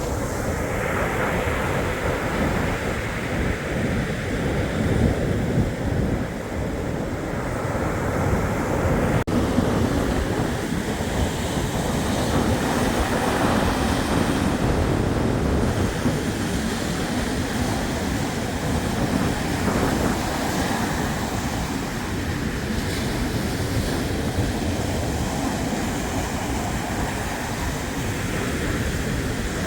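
Black Sea surf washing on the shore in a steady wash of noise, with wind rumbling on the microphone.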